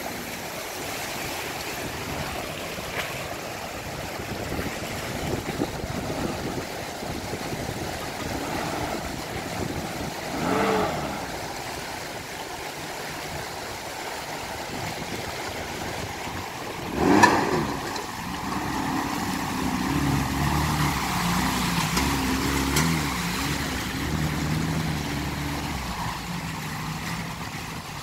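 Fast shallow river rushing over rocks, with a Daihatsu Feroza 4x4's engine revving and labouring from about eighteen seconds in as it comes down the bank into the water. Two short shouts cut through, about ten and seventeen seconds in, the second the loudest.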